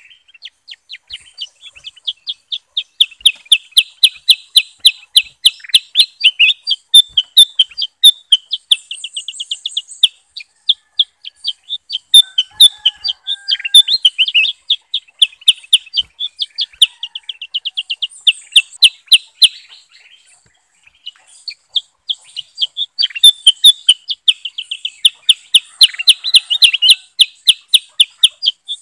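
Bulbuls (kutilang emas and kutilang sutra) calling in long, rapid strings of short, high chirping notes, broken by a brief lull about twenty seconds in before starting again.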